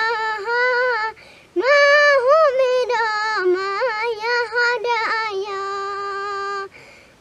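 Young girl singing a Nepali song solo, without accompaniment: a phrase ends about a second in, then after a breath she sings a long phrase that ends on a held note.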